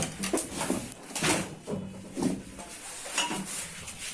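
Irregular clatter, knocks and scraping of parts and tools being handled on a workbench during a CRT TV repair.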